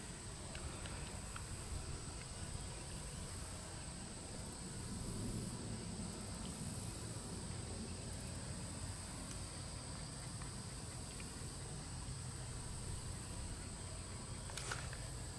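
Faint outdoor ambience of a steady high-pitched insect chorus, with a low rumble underneath.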